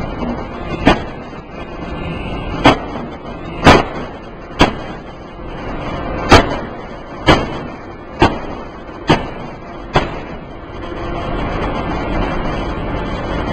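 3-ton open die forging hammer striking hot metal: nine sharp, heavy blows over about ten seconds, unevenly spaced at first and then about once a second, over a steady background of machinery noise. The blows stop about ten seconds in.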